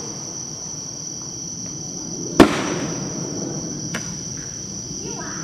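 A 500 g consumer firework cake firing: one loud bang about two and a half seconds in, its report trailing off, and a fainter pop near four seconds. Insects drone steadily and high behind.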